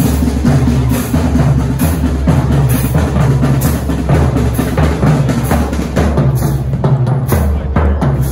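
Marching band playing as it passes, with bass and snare drums beating a steady rhythm under the low lines of sousaphones and brass.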